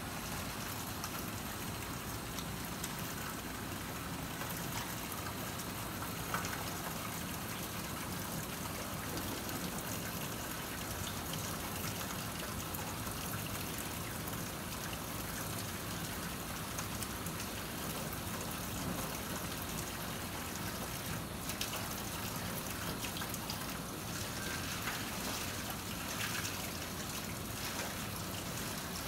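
Tap water running steadily into a stainless steel bar sink while hands are scrubbed and rinsed under the stream during a thorough handwash.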